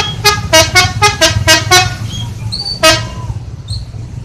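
Telolet musical horn of a Mustika Holiday bus playing a quick tune of short toots, about seven notes changing pitch in under two seconds, then one more toot about a second later. A low engine rumble runs underneath.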